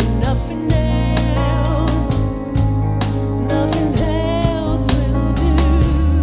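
Gospel worship band playing: a drum kit keeps a regular beat over a sustained bass and held chords, while a voice sings long, wavering notes.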